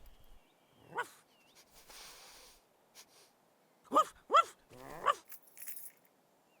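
Dog barking: one short bark about a second in, then three quick barks between about four and five seconds in.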